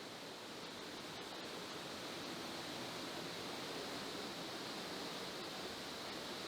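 Sgwd Clun-gwyn waterfall: a steady, even rush of falling water.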